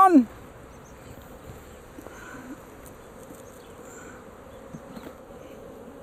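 Swarm of honeybees buzzing steadily around an open, just-disturbed hive, many bees in the air at once.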